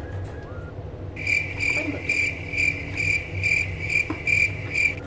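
Cricket chirping in an even pulse, about two to three chirps a second, starting suddenly about a second in and stopping just before the end.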